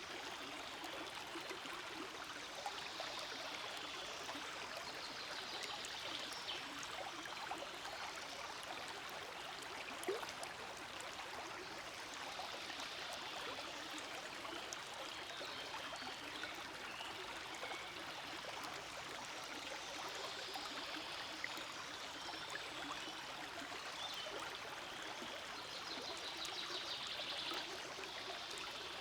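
Forest stream flowing, a steady, even rush and trickle of water, with one brief sharper sound about ten seconds in.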